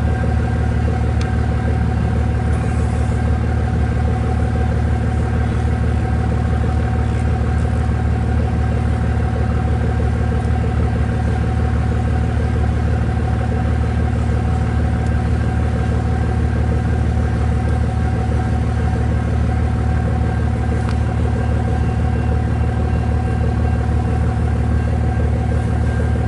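Steady low engine hum of a vehicle idling, holding an even pitch with no change in speed.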